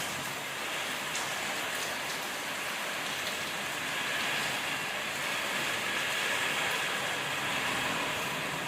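Heavy rain pouring down steadily in a thunderstorm, an even, unbroken rushing hiss.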